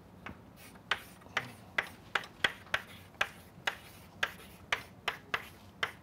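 Chalk writing on a blackboard: a string of short, sharp taps and scratches, one per stroke of the letters, about two or three a second.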